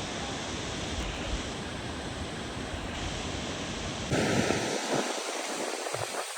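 Steady rushing roar of a large waterfall's falling water, an even noise with no pitch. About four seconds in it changes abruptly to a thinner, brighter hiss with the deep part gone.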